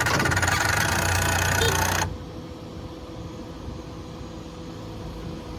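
Loud machinery noise with a low engine-like hum that cuts off abruptly about two seconds in, leaving a quieter steady mechanical hum.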